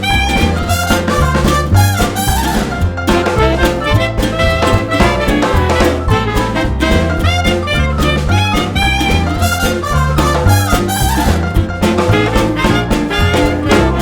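Swing-style music with brass and a steady beat from bass and drums.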